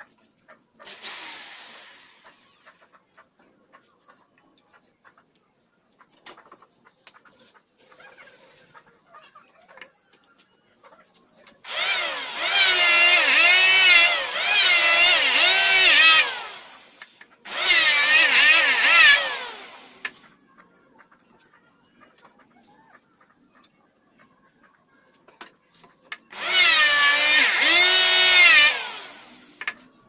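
Corded power tools working wood, an electric drill fixed to the bench and an electric hand planer, running in three bursts of a few seconds each. The motor whine dips and recovers in pitch as it loads up. A brief, fainter run comes about a second in.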